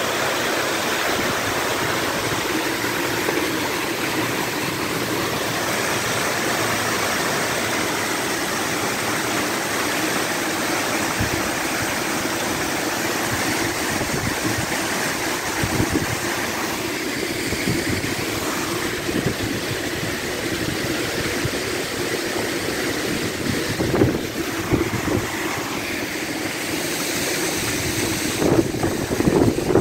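Floodwater cascading down a stone wall and steps into a swollen river, a steady loud rushing of water. A few thumps come near the end.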